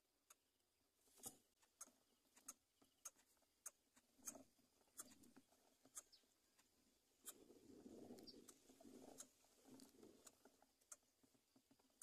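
Near silence, with faint scattered ticks and a soft low rustle a little past halfway.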